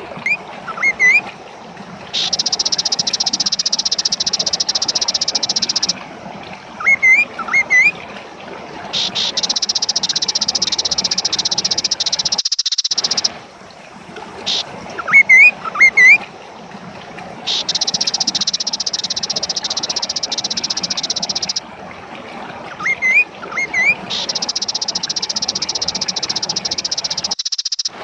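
Kaso-kaso bird singing vigorously in a repeating cycle: a few short, rising whistled notes, then a long, high buzzing trill of about four seconds, every seven to eight seconds, over steady background noise.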